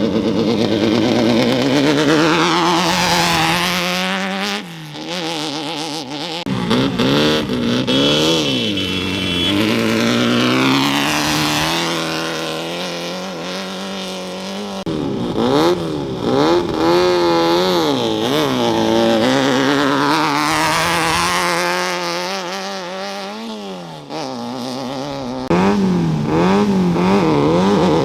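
Off-road race trucks and buggies revving and accelerating away from a start line one after another, engine pitch repeatedly climbing and falling as each one launches and passes. A brief high beep sounds about eight seconds in.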